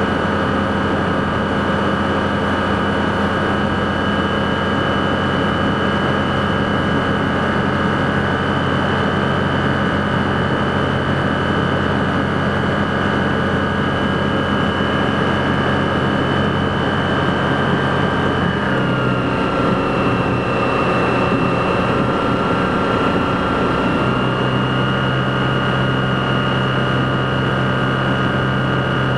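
Rotax 912 flat-four engine and propeller of a BushCaddy R-80 floatplane, heard from inside the cockpit, running steadily on a low approach over water. About two-thirds of the way through the power comes back and the engine note drops, then rises a little again some five seconds later.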